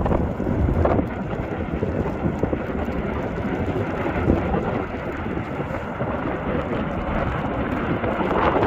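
Continuous low rumbling roar from the erupting Fagradalsfjall volcano vent and its lava flows, mixed with wind buffeting the microphone.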